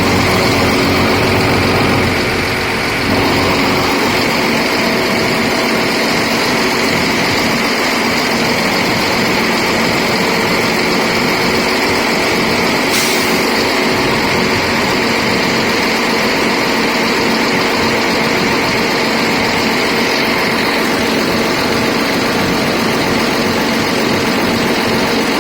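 Atlas 330.1 crane running with its hydraulic system on: a steady, somewhat loud machine noise with a continuous whine from the hydraulic pump, the abnormal pump noise being troubleshot. The level dips briefly about two seconds in, and there is a single sharp click about halfway through.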